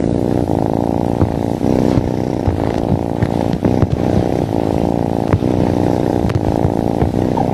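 Domestic cat purring loudly, close to the microphone: a steady, low, buzzing rumble.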